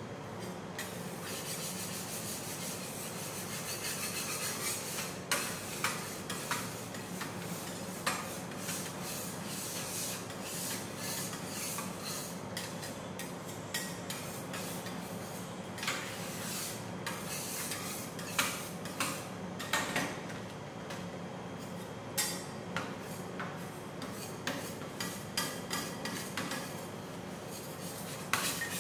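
Metal spatulas scraping and chopping on a steel ice cream roll cold plate, with irregular sharp taps over a steady low hum.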